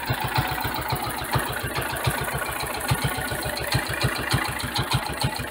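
Cub Cadet 122 garden tractor engine idling, with a fast, even beat of about nine pulses a second.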